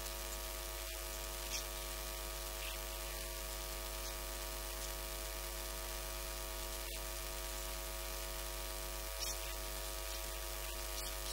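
Steady electrical mains hum and buzz with a constant hiss, and a couple of faint ticks.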